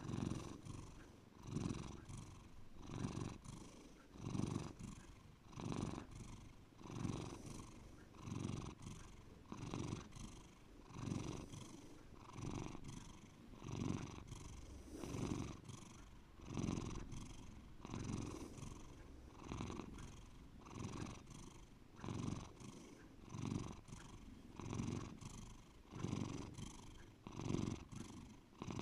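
Domestic cat purring deeply and steadily, the purr swelling and fading in an even rhythm about once every second and a quarter.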